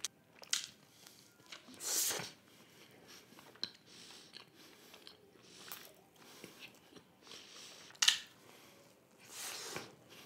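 Close-miked chewing of a mouthful of pizza: soft, wet mouth sounds with scattered louder bites and crunches. The loudest come about two seconds and eight seconds in.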